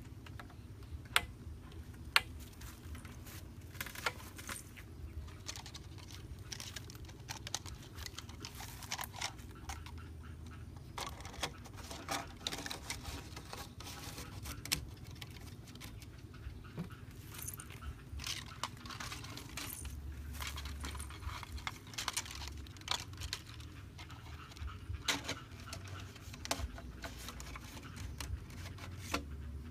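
Corrugated plastic pipe handled by hand: irregular clicks, taps and scrapes of plastic.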